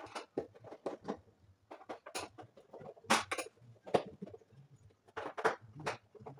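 Irregular small clicks, taps and knocks as gloved hands handle a wall-mounted consumer unit, its enclosure and circuit breakers. They come unevenly, a few a second, with the sharpest about three, four and five and a half seconds in.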